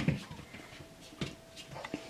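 Burmese kittens playing, their paws thumping and scuffling on a blanket and the vinyl floor: a sharp knock at the start, then a few lighter knocks and scrabbles.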